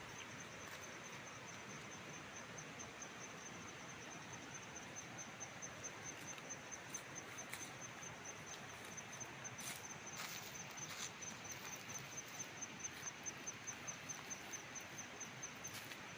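An insect, likely a cricket, chirping in a steady high-pitched pulse a few times a second over an outdoor background hiss, with a few short clicks or rustles.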